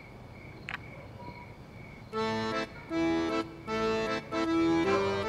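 Background music starts about two seconds in, with sustained, reedy chords in short rhythmic phrases. Before it there is only a faint, steady, pulsing chirr like crickets, with a single click near the start.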